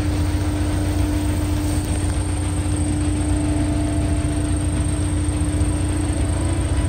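Steady low mechanical hum and rumble with a constant droning tone.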